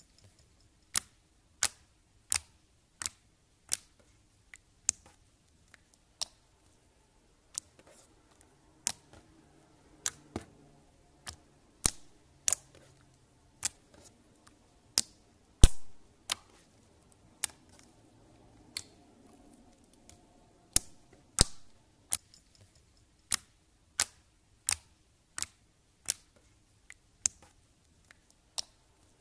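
Clear slime being pressed and poked by hand, giving sharp clicking pops at an uneven pace of about one or two a second. A few pops are louder, one about halfway through, with a short crackle after.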